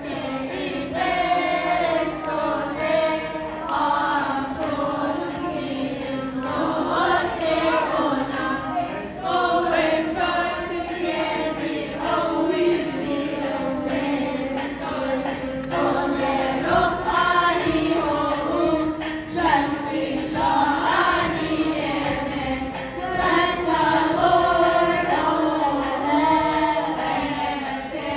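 Children's choir singing a hymn in unison, continuous melodic singing with many voices together.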